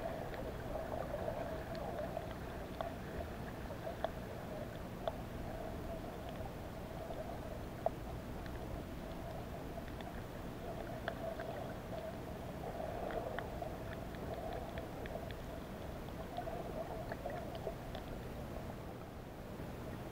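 Muffled underwater ambience picked up by a camera submerged in shallow sea water: a steady hum that swells and fades, with scattered faint clicks.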